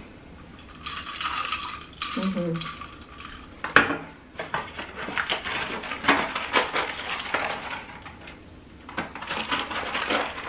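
Sipping an iced drink through a plastic straw, then a glass set down on the countertop with a sharp knock a little before halfway. After that come two stretches of quick clicking, clattering and rattling as things are handled at the counter.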